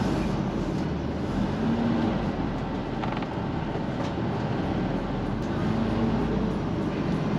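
Diesel engine of a Dynamax DX3 motorhome running at low speed while the motorhome creeps forward and turns, heard from inside the cab as a steady low rumble.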